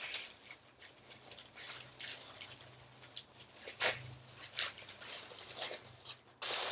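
Scissors snipping and packaging rustling as a package is cut open and handled, in irregular clicks and crinkles with one louder one about four seconds in.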